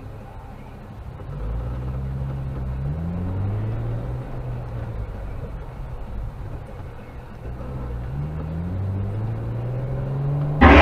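A car engine, heard from inside the cabin, pulling away from a stop. Its pitch climbs, levels off, then climbs again a few seconds later as the car speeds up.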